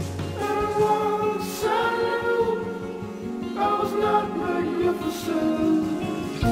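Background music: a song with sung vocals over a sustained accompaniment.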